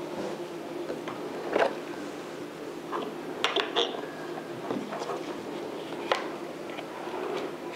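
Small hard plastic clicks and knocks as a GoPro Hero 12 Black camera and its mounting parts are handled and fitted together, a few separate clicks with a little cluster near the middle and one sharp click near the end.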